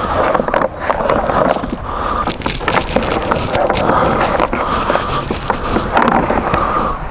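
Monofilament cast net being shaken out over a plastic tub to free the catch: its chain lead line rattles and knocks against the plastic in a steady clattering rustle full of small clicks.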